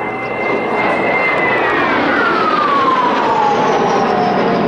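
Kawasaki T-4 jet trainer's twin turbofan engines passing close in a tight turn: a loud jet rush with a high whine that holds steady, then falls in pitch from about a second and a half in as the jet goes by.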